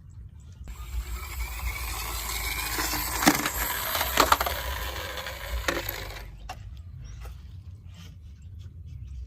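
Rattling clatter of small hard toys being handled and jostled together. It lasts about five seconds, with a few sharper knocks in its second half.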